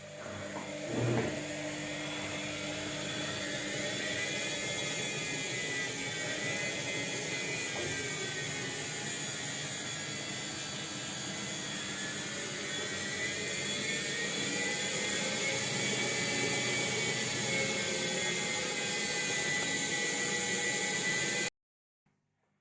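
LG 80150NU washing machine running, a steady motor whir with a whine that slowly wavers up and down in pitch, stopping abruptly near the end.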